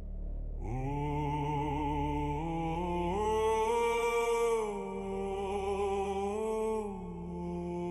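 Slow ambient music: a low steady drone with a wordless, long-held vocal line that wavers in vibrato, entering under a second in, stepping up in pitch around the middle and falling back near the end.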